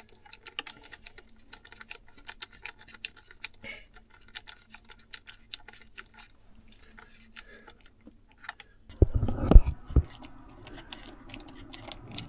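Light, scattered clicks and ticks of small parts and tools being handled, then a few loud knocks and a low rumble of handling noise about nine seconds in.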